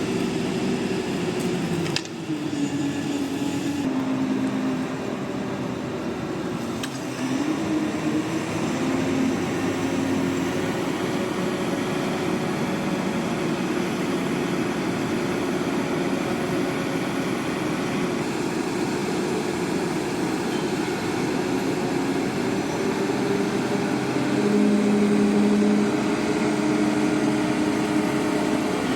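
Heavy machinery engine running steadily, its pitch stepping up and down several times, with a sudden change in the sound about two seconds in.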